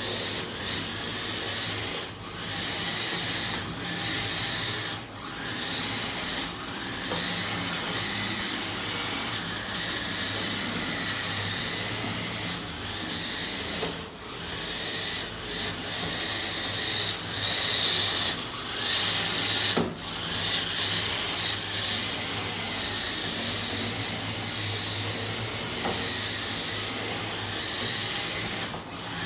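Märklin 1022 electric motor and its reduction gearing whirring steadily as a metal construction-kit E60 locomotive pulls two metal goods wagons along G gauge track. The sound dips briefly a few times.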